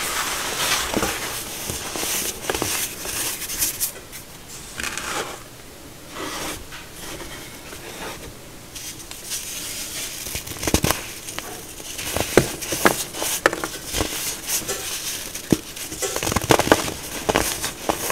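Hands squeezing and crushing packed baking soda: a dense, soft crunching and crackling. It grows quieter for a few seconds near the middle, then sharper snaps come as the pressed blocks break apart.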